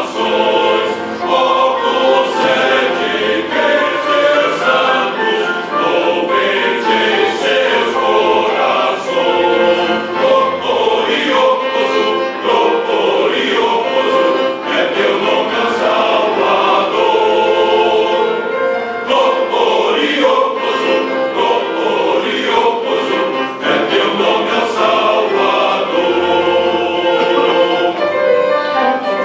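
Church choir singing a hymn, many voices holding chords.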